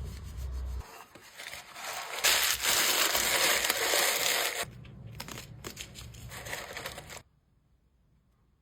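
Packaging materials being handled during jewelry packing: crinkling and rubbing, loudest for about two seconds before the middle, then stopping about seven seconds in.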